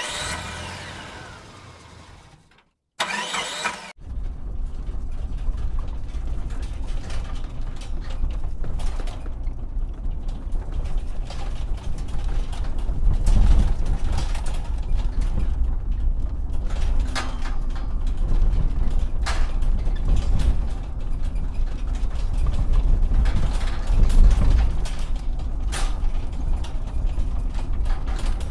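Toy radio-controlled excavator at work: a steady low mechanical rumble with scattered sharp clicks and knocks. It opens with a short ringing tone that fades out over the first two seconds.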